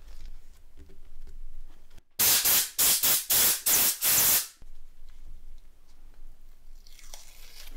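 Pressurised aerosol can giving about seven short, loud hissing bursts over some two seconds, the last one longest, then a fainter hiss near the end.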